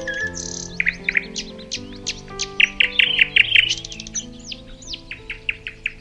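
Songbirds chirping and twittering in quick notes that sweep up and down, busiest in the middle. Underneath is soft instrumental music of held notes.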